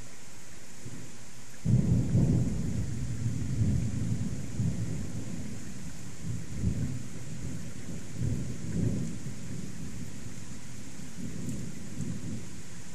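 Thunder: a deep rumble that breaks in suddenly about two seconds in and rolls on in several swells, slowly fading, over the steady hiss of rain.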